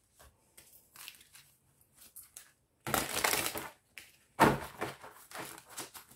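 A tarot deck being handled and shuffled by hand: soft rustling of cards, then two louder spells of card noise, about three seconds in and again about a second later.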